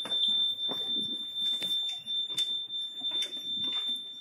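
Steady, high-pitched electronic alarm tone sounding without a break from one of the boat's alarms. The owners cannot find its cause and wonder whether it is a faulting high-water alarm. A few light knocks from people moving about sound underneath.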